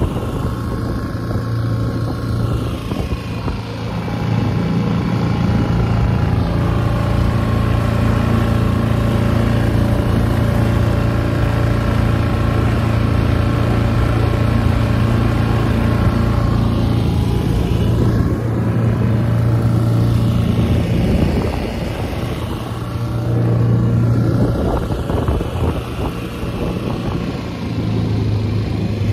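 A small skiff's outboard motor running steadily under way. It eases off briefly about two-thirds of the way through, then picks up again.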